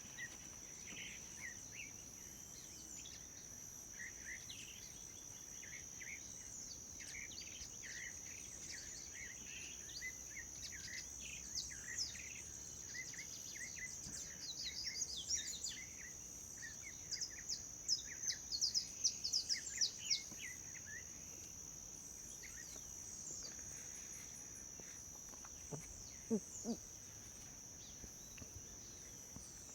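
Outdoor nature ambience: a steady high-pitched insect drone under many short bird chirps, busiest in the middle of the stretch, with a couple of brief lower calls near the end.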